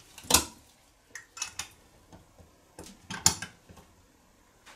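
Metal hand tools and small carburetor parts clinking on a workbench. There are several separate sharp clinks, the loudest about a third of a second in and another just past three seconds.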